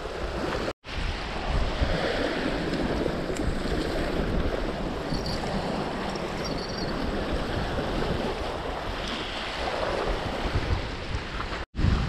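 Strong gusting wind buffeting the microphone, with waves washing against the shore: a steady rush of noise, broken by a short gap about a second in and another near the end.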